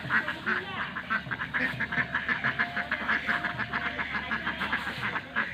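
Ducks quacking: a rapid, continuous run of short quacks, several a second, from more than one bird.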